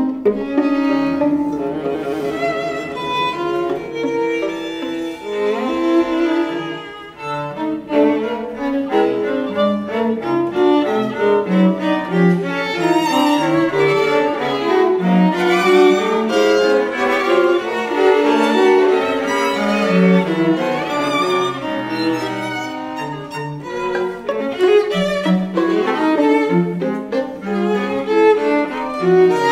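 String quartet of two violins, viola and cello playing bowed, with busy, constantly moving lines in all four parts. The music eases briefly about seven seconds in, then carries on at full strength.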